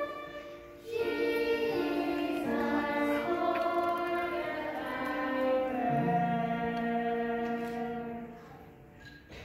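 A group of young children singing a song together. There is a short break about a second in before the next phrase, and the singing dies away near the end.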